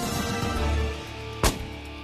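Background music with drums, and about one and a half seconds in a single sharp gunshot over it, the loudest sound, with a short echo.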